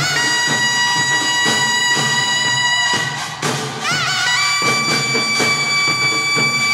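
Taepyeongso, the Korean double-reed shawm, holding long high notes with a wavering bend in the middle, over regular strokes of a pungmul percussion ensemble.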